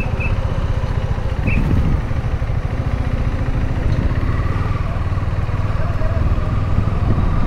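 KTM Duke 390's single-cylinder engine running steadily at low revs as the bike rolls slowly in first gear.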